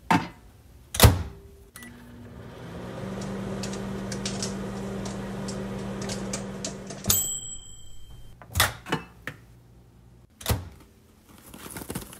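GE over-the-range microwave oven: the door shuts with a sharp knock, then the oven runs with a steady low hum while popcorn pops in a glass popper inside, as scattered light clicks. About seven seconds in the run ends with a short electronic beep, followed by a few knocks of the door opening and the popper being handled.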